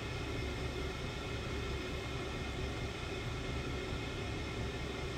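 Steady hum and whir of running equipment: an even hiss with several constant tones over it, unchanging throughout.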